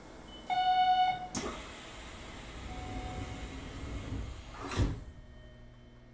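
A Hanshin 1000 series train's door-closing chime sounds for under a second, then the doors shut with a thud. A rushing noise follows and ends in a second, louder thump about five seconds in, leaving a low steady hum.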